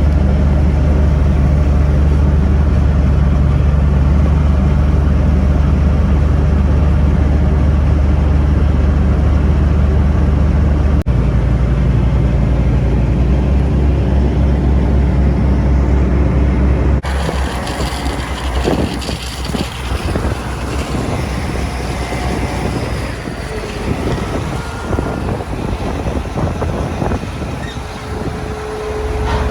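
Heavy diesel machinery engine running with a loud, steady low drone that changes abruptly about eleven seconds in. About seventeen seconds in it gives way to a quieter, rougher engine sound with scattered clanks and rattles.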